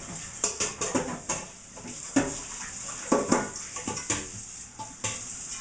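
Kitchen clatter: metal pots, pans and utensils being handled, with a series of irregular knocks and clinks.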